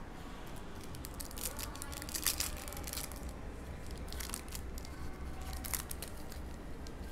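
Foil wrapper of a trading-card pack being torn open and crinkled in the hands, a string of crackles, over a steady low hum.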